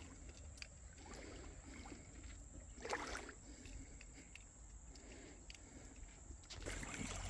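Faint trickling and sloshing of shallow creek water, with a few light clicks and one brief louder swish about three seconds in.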